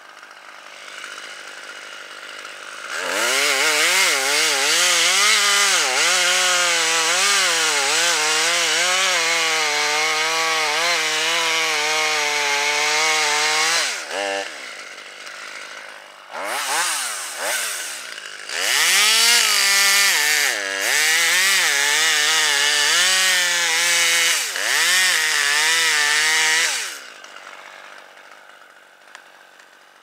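Gas chainsaw run at full throttle in two long stretches of about ten seconds each, with a couple of short revs between them. Its engine pitch sags and recovers again and again as the chain bites into the wood, then it drops back to a quiet idle near the end.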